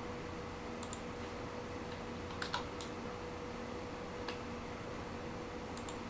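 Graphics card cooling fan of an EVGA GTX 550 Ti running steadily at 60% speed, a whir with a steady hum. A few sharp clicks come through it, the loudest pair about two and a half seconds in, as the fan speed is being set to 70%.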